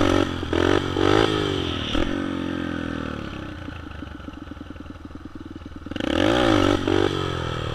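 Yamaha TT-R125's single-cylinder four-stroke engine, breathing through an FMF exhaust, revs hard through several quick upshifts. Its pitch then falls away as the rider eases off, and it revs up again about six seconds in.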